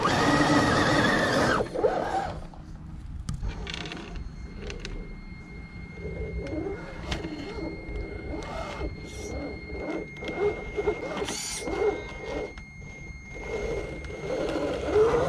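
1/10-scale RC crawler trucks' electric motors and gearboxes whining as they drive over a loose dirt mound, the pitch rising and falling with the throttle, with scattered clicks and knocks from the tyres on clods. The motor whine is loudest for the first two seconds, and a thin steady high whine holds through the middle.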